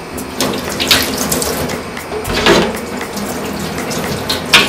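Water from a kitchen tap running and splashing into a stainless-steel sink while a knife and cutting board are rinsed, with a few louder surges of splashing.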